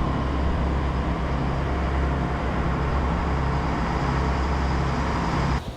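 Power boat's engine running steadily underway, a loud even rumble mixed with wind and water rush; it cuts off suddenly near the end.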